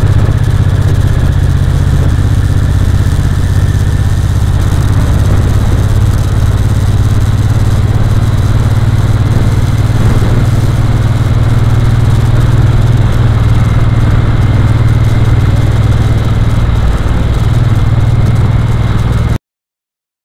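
Vehicle engine running steadily at a constant pace with a strong low drone, mixed with the rush of wind and road noise of an onboard camera; it cuts off abruptly near the end.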